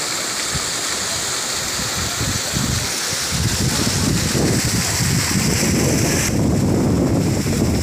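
Stream water rushing and trickling over stones, a steady hiss, with wind buffeting the microphone in irregular low gusts. The water's hiss weakens about six seconds in while the wind rumble carries on.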